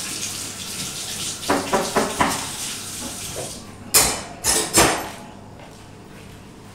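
Kitchen tap running into a metal sink while dishes are washed, with a few light clinks of crockery. About four seconds in come three loud clatters of dishes, and the running water then dies down.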